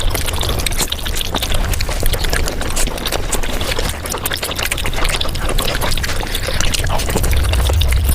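Close-miked eating sounds sped up to five times normal speed: a dense, unbroken crackle of wet mouth clicks and smacks from chewing and slurping noodles and dumplings.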